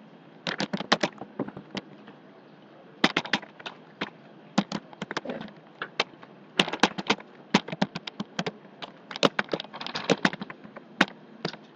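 Typing on a computer keyboard: irregular runs of sharp keystrokes separated by short pauses.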